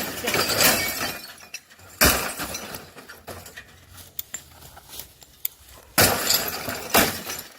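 An RCA F20518WN CRT television being smashed. There are four heavy blows, the loudest about two, six and seven seconds in, each followed by glass and plastic debris clattering, with small glass clinks between the blows.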